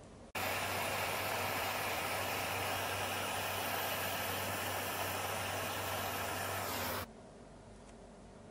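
Gas torch flame hissing loudly and steadily with a low hum, heating small metal parts on a ceramic soldering board to colour them; it starts abruptly a moment in and cuts off suddenly about a second before the end.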